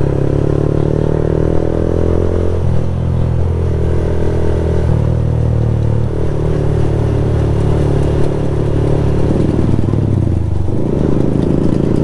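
Yamaha MT-15's 155 cc single-cylinder engine running in third gear at about 35 km/h, heard from the rider's seat. Its pitch dips and rises a few times with the throttle, most clearly near the end.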